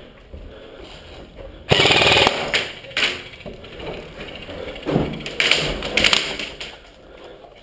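Airsoft gun firing a rapid full-auto burst of about half a second, about two seconds in. Shorter, irregular loud noises follow later.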